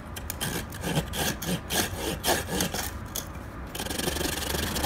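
Folding saw with a cross-cut blade sawing through a piece of hard, well-seasoned ash firewood: quick back-and-forth strokes, about four a second, rasping through the dry wood. Near the end the strokes run together into a steady rasp.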